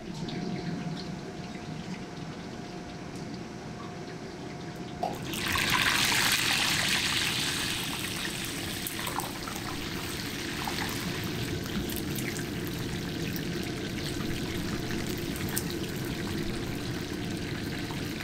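Squid marinated in red vinasse deep-frying in a wok of hot oil: a sudden loud sizzle about five seconds in, easing after a couple of seconds to steady bubbling. Before it, a steady kitchen hum with a faint tone.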